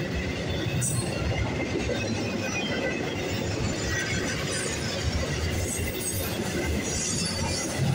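Double-stack intermodal well cars rolling past: a steady rumble of steel wheels on rail, with brief high squeals about a second in and again near the end.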